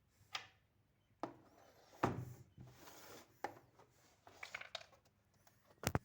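A cardboard box and packaging being handled: irregular knocks, scrapes and rustles about once a second, with a sharp click near the end the loudest.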